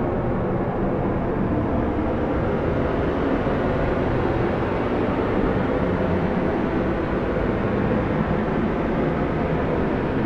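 Strong blizzard wind blowing steadily: an even, deep rush with most of its weight low and little hiss.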